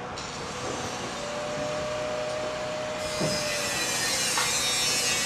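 Steady mechanical noise, with a thin steady whistle-like tone in the middle and a high hiss that grows louder about three seconds in.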